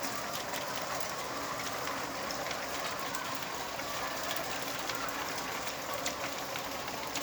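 Steady din of a large flock of laying hens in a poultry shed, with many small clicks and taps throughout.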